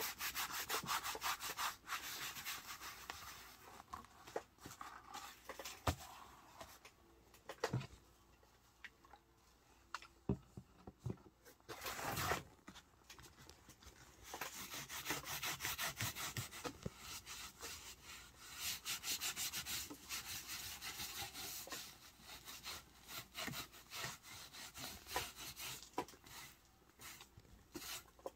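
Cloth rag rubbing leather balm into a tooled leather holster in quick back-and-forth strokes, in spells with short pauses. A few knocks come in the middle, as the holster is handled.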